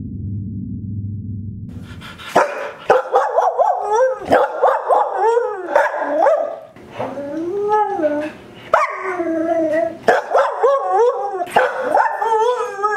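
A low humming drone that cuts off about two seconds in, then a Samoyed howling and barking in a run of short, wavering calls that rise and fall in pitch.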